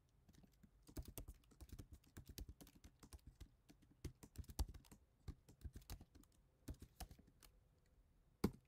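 Computer keyboard keys clicking faintly in short, irregular runs of typing with brief pauses between them, and a sharper click near the end.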